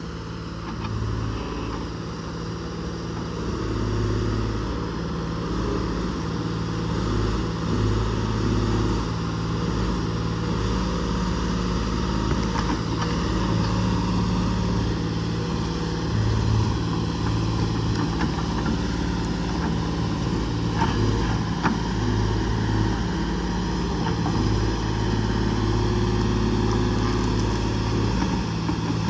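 Case 125B tracked excavator's diesel engine running steadily, its pitch and load swelling and easing as the boom and bucket work stumps and debris, with a few faint knocks.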